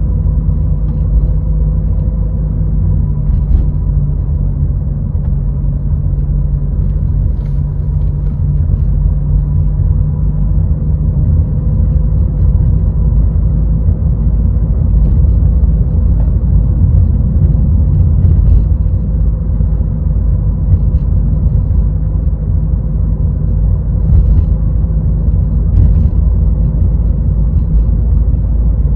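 A Renault car being driven in city traffic. Its engine and tyres make a steady low rumble, with a few faint ticks and knocks scattered through.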